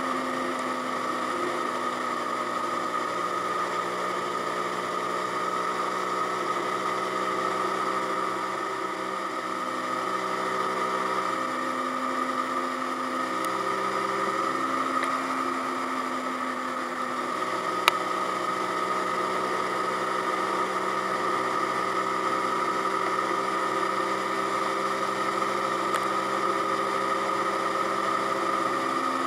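Zontes G1X 125 scrambler's 125 cc single-cylinder engine running under way, with its pitch shifting in steps several times midway as the rider works the throttle and gears. A single brief click is heard about two-thirds of the way through.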